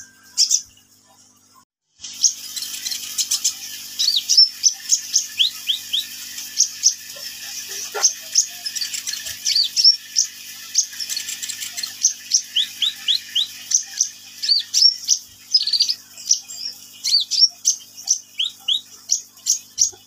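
Crimson sunbird (kolibri ninja) singing busily: a rapid, unbroken stream of short, high, sharp chirps and quick rising and falling notes, several a second. It starts about two seconds in, after a single chirp.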